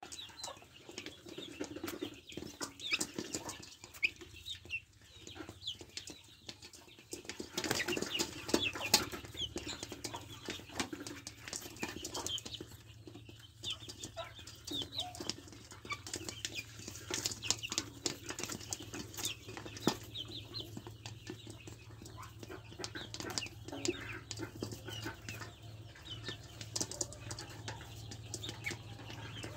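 Young chickens feeding together from a metal bowl: many quick pecking clicks, high chirps and peeps, and brief wing flutters as they jostle.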